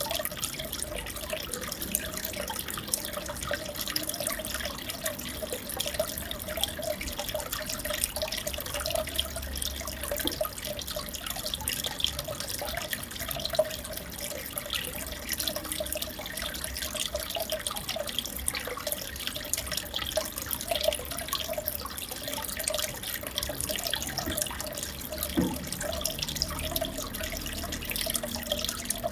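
Steady trickling and bubbling of aquarium water, with a fine crackle of small splashes and drips that holds constant.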